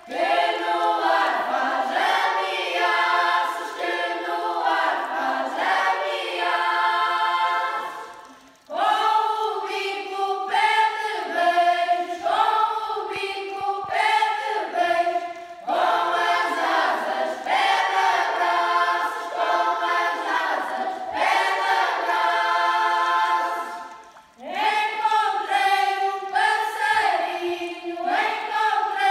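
Traditional Portuguese folk song sung by a choir without accompaniment, in long phrases with short breaks between them about a third of the way in and again near the end.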